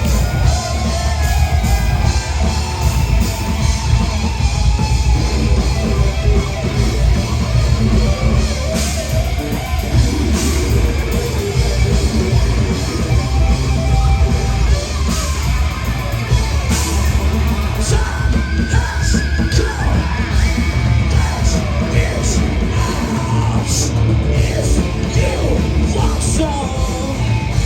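Thrash metal band playing live at full volume: distorted electric guitars and drums, with yelled vocals.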